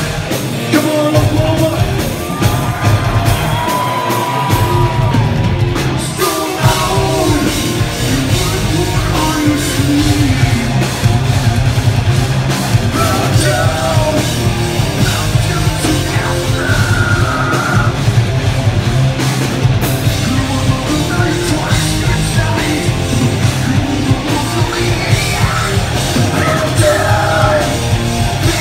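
Live rock band playing loud: distorted electric guitars, bass and drums, with a singer singing and yelling over them.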